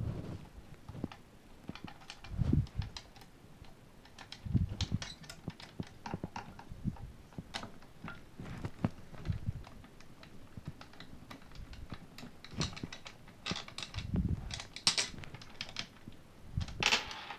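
Small metal clicks and taps from an Allen key working the bottom screws of a Snow Wolf M24 airsoft rifle, mixed with several dull knocks as the rifle is handled. There is a brief scraping rattle near the end.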